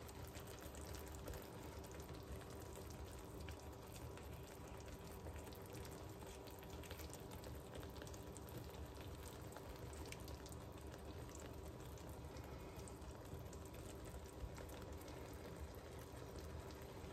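Faint, steady sizzling and crackling of hot caramel and apples frying under cake batter in a pan.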